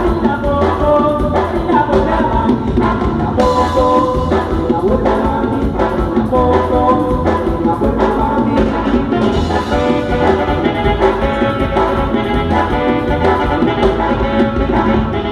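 Regional Mexican band music with brass horns playing the melody over a steady, regular low beat.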